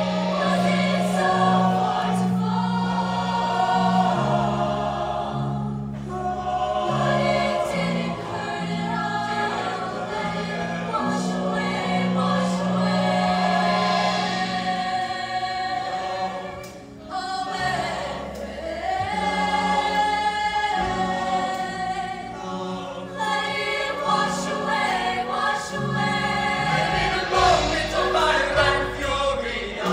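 Show choir singing in harmony over steady low accompaniment notes, with a short lull a little past halfway before the voices come back in full.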